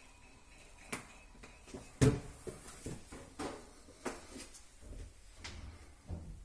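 Several sharp knocks and clicks at irregular intervals, the loudest about two seconds in.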